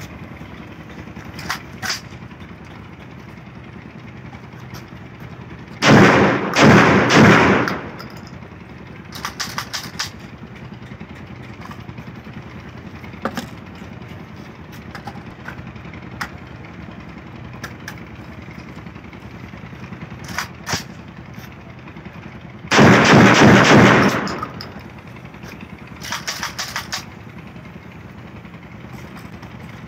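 12-bore shotgun built in AK-47 style firing two quick strings of several shots each, the first about six seconds in and the second about seventeen seconds later. Between the strings come sharp metallic clicks and rattles from handling the gun.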